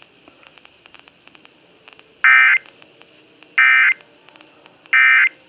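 Emergency Alert System end-of-message data bursts: three short, identical screeching digital bursts about a second and a half apart, marking the end of the alert. They sound over faint broadcast hiss.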